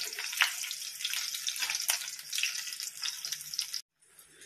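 Stuffed capsicums sizzling in hot mustard oil in a kadhai: a steady crackling hiss full of small pops of spitting oil. It breaks off for a moment near the end.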